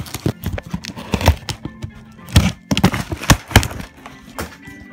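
Cardboard shipping box being handled and torn open by hand: a quick, irregular run of sharp rips, knocks and rustles, loudest in the middle. Faint background music runs underneath.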